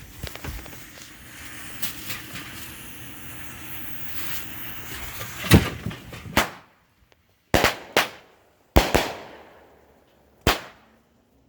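A 200-gram consumer fireworks cake: a steady fizzing hiss, like a lit fuse burning, for about five seconds, then the cake starts firing. A loud first shot comes about five and a half seconds in, followed by further shots, some in quick pairs, roughly every one to one and a half seconds, each trailing off.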